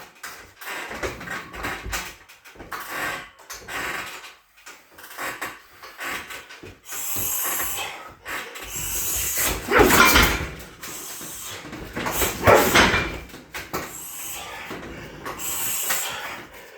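Roundhouse kicks hitting a 60 kg heavy bag: two loud hits about two and a half seconds apart in the second half, with quieter knocks and shuffling between them.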